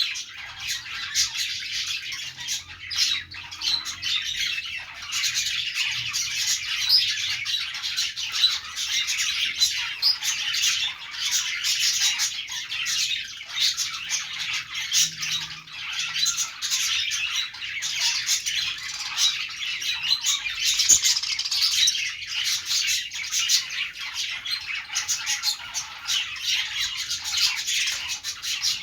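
A group of budgerigars chattering without pause: many overlapping high warbles and chirps, with sharper squawks mixed in.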